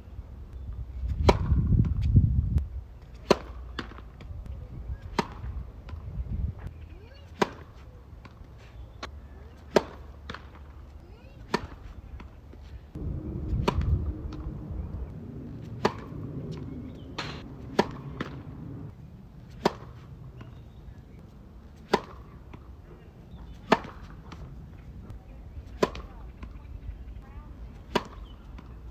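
Tennis racket striking balls on serves: a sharp pop about every two seconds, with fainter ball bounces between. A low rumble swells twice.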